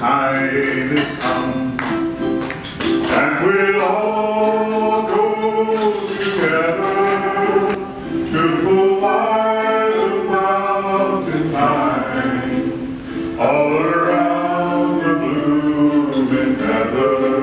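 A man singing a slow song in long held phrases, accompanied by a strummed ukulele.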